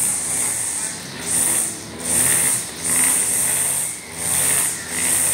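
Backpack brush cutter's petrol engine and spinning nylon trimmer line cutting short grass. It has a high whine that swells and eases about once a second as the cutting head is swept back and forth.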